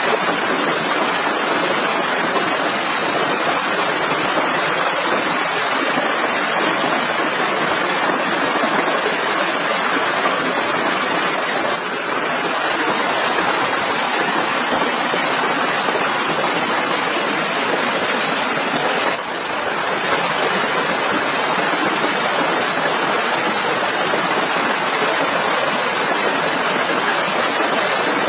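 Steady rushing water noise, even and unbroken, with two brief dips in loudness partway through.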